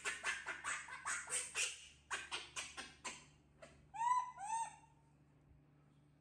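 Baby macaque giving two short rising-and-falling coo calls, one right after the other, about four seconds in. Before them, a quick regular run of short scratchy sounds, about five a second, for the first three seconds.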